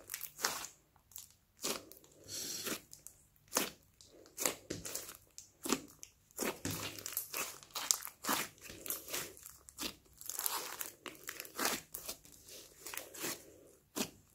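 Hands squeezing, pressing and kneading a large lump of thick, creamy slime studded with small beads, giving a run of irregular wet crackles, clicks and pops.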